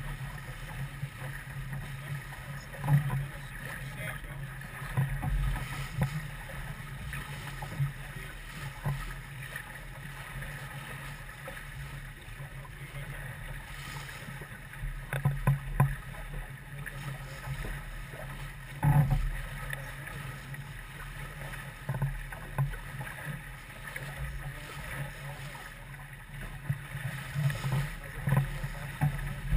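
Boat under way during a sailing race: a steady low rumble of water and wind noise, broken by a few sharp louder knocks or slaps.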